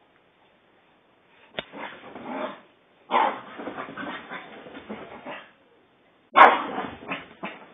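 A Chinese crested dog romping over couch cushions, making play-growling and scuffling sounds in three spells with short silences between them. A sharp knock comes early in the first spell, and the last spell starts suddenly and loudly.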